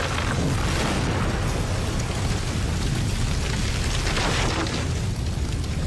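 Explosion sound effect: a continuous low rumble under a dense rushing noise, steady in level, with no single sharp blast standing out.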